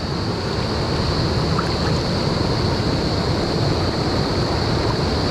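Fast mountain stream rushing over rocks and small falls: a steady, loud wash of water with no breaks.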